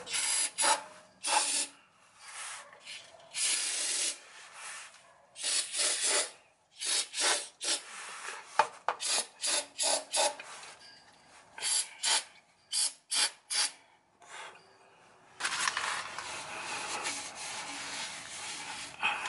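Aerosol brake cleaner sprayed in a rapid string of short hissing bursts, some a fraction of a second and some about a second long. It is washing spilled gear oil off a differential and its skid plate. Near the end the bursts give way to a few seconds of steady rubbing as the area is wiped down.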